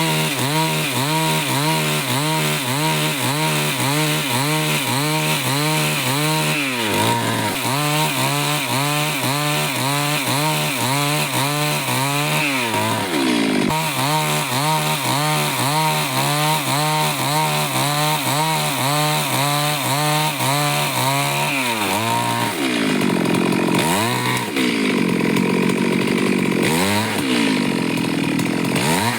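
Two-stroke chainsaw cutting wood, its engine pitch dipping and recovering about twice a second as the chain bites and eases. After about twenty seconds the revs rise and fall more slowly and widely.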